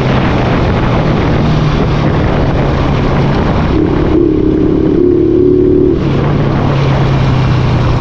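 Honda TMX 155's single-cylinder four-stroke engine running through an aftermarket Takasago muffler while riding, with wind on the microphone. Its note shifts higher for about two seconds in the middle, then settles back.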